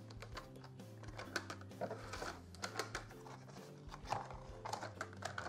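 Quiet background music under scattered clicks and taps of plastic being handled: batteries pressed into a holder and the lid of a clear plastic box fitted closed.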